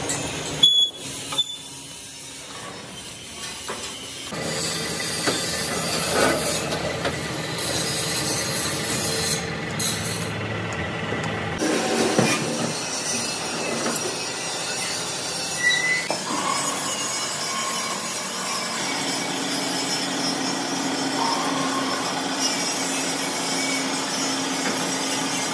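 Overhead gantry crane working, with metal rubbing and scraping and a few sharp clanks. A steady low hum sets in about two-thirds of the way through.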